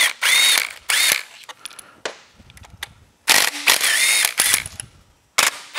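Cordless Snap-on power tool with a socket spinning out the oil pump bolts, in several short whirring runs whose pitch rises and falls as the motor spins up and stops, with small metallic clicks between them.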